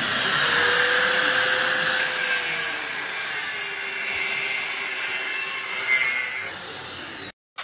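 A power tool running continuously with a high whine that drifts slowly in pitch, breaking off abruptly near the end.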